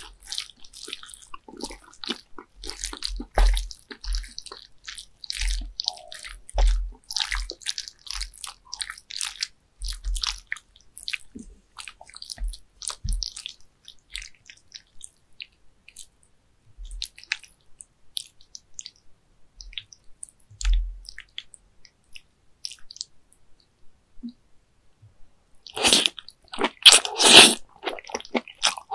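Wet, sticky squelching and clicking of raw baby squid being stirred through red chili sauce with wooden chopsticks, dense in the first half and then only the odd tick. About three seconds before the end comes a louder, longer wet sound of eating.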